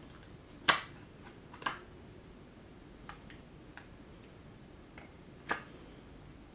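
Plastic coffee capsule being cut and pried open with a knife blade, giving sharp cracking clicks: a loud one a little under a second in, another about a second later and a third near the end, with a few light ticks between.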